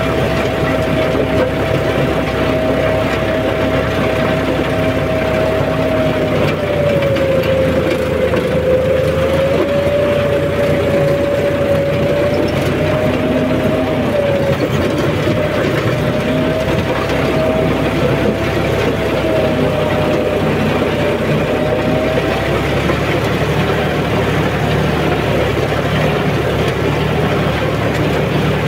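John Deere 5210 tractor's three-cylinder diesel engine running steadily under load while pulling a rotavator, heard from the driver's seat. A whine rides over it, wavering down and up in pitch, and stops about three quarters of the way through.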